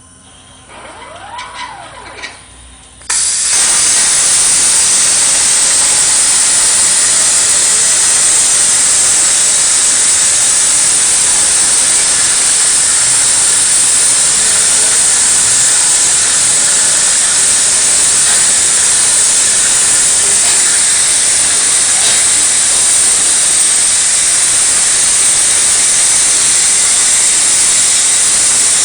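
CNC plasma cutter's torch firing with a sudden loud hiss about three seconds in, then a steady hiss as it cuts 3/8-inch steel plate. Before it fires, a few faint rising and falling whines.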